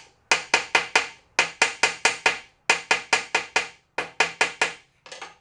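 Rapid hammer blows on a metal seal ring, about six a second in four runs of five to seven strokes with short pauses, stretching the ring's outside diameter so it fits snugly in its housing. A lighter single tap comes near the end.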